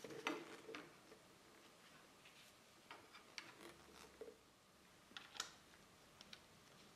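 Faint, scattered clicks and light taps of a metal flyscreen mounting bracket, spacer disc and bolt being handled and fitted by gloved hands, the loudest just after the start and again about five seconds in.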